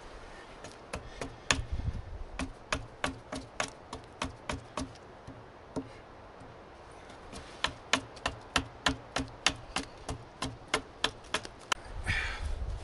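Axe chopping wood off the belly of a wooden rabbit stick, removing mass in light, quick strikes of about four a second. There are two runs of strikes with a pause of about two seconds between them. A short rush of wind noise comes near the end.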